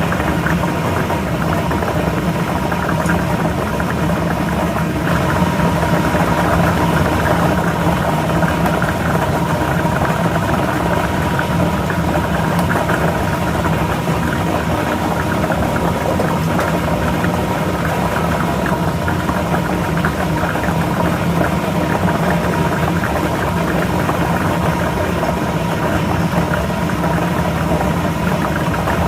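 Lottery ball machine running steadily: a constant motor hum with the balls clattering as they are mixed.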